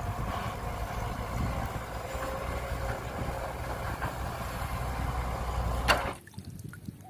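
Steady rush of water, likely a tap or hose washing mud off a toy excavator, with a sharp knock just before it cuts off about six seconds in.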